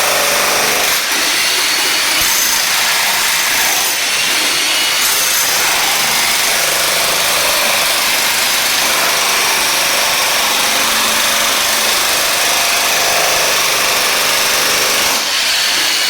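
Electric jackhammer running steadily and loudly, chiselling up glued-down wood flooring and the tile beneath it.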